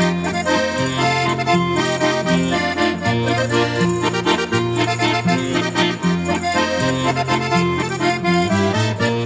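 Piano accordion playing a jota melody in held, stepping notes, with strummed guitar accompaniment keeping a steady beat.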